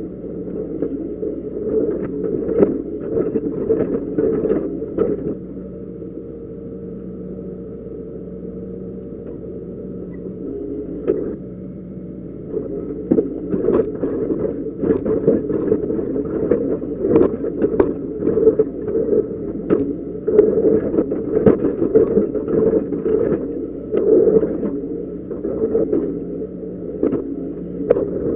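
Doosan DX140 excavator's diesel engine running under hydraulic load, heard from inside the cab, with frequent knocks and clatter as the bucket works the dirt. It runs quieter and steadier for a few seconds in the middle, then the knocking picks up again.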